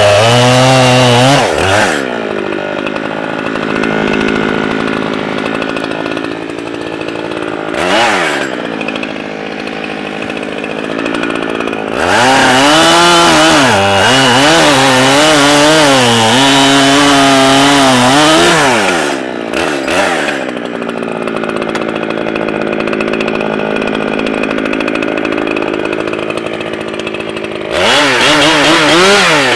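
Echo CS-7310P two-stroke chainsaw running at high throttle while cutting wood. Loud revving bursts with a wavering pitch come between steadier, quieter stretches where the engine holds a level pitch under load.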